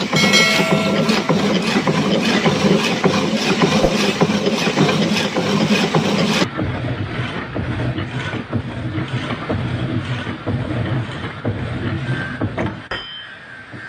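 Industrial machinery running with a dense, steady mechanical din. About six and a half seconds in the sound changes abruptly to a duller, lower rumble, which fades near the end.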